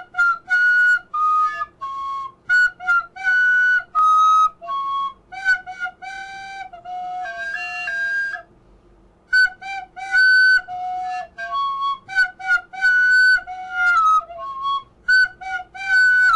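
Flute music: a melody of short, separate notes, with a brief pause about halfway through.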